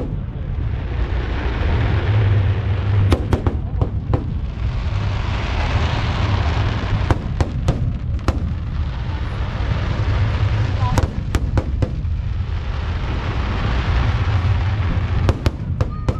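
Fireworks display: groups of sharp bangs from bursting shells about every four seconds, over a continuous rumble and crackle.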